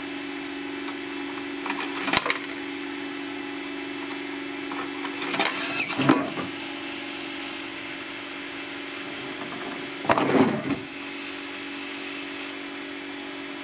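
Coins clinking through the coin acceptor of a homemade can vending machine, about two seconds in and again around six seconds in, then a clattering around ten seconds in as a Coca-Cola can is pushed out. A steady electrical hum runs underneath.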